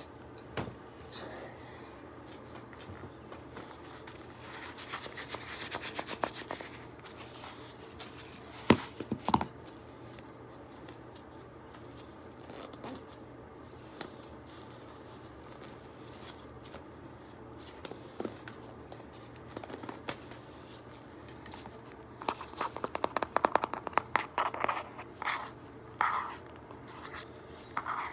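Gloved hands crushing and working crumbly pink slime, with rustling, scraping and crinkling, two sharp knocks about nine seconds in, and a dense run of quick taps and crackles near the end.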